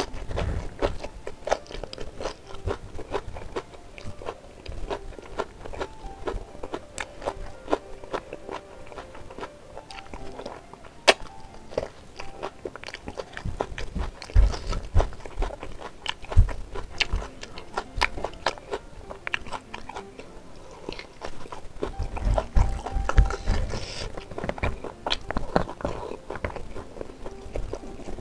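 Close-miked chewing and wet mouth sounds of a person eating spicy beef ribs with rice by hand, a steady run of short clicks and smacks, with quiet background music underneath.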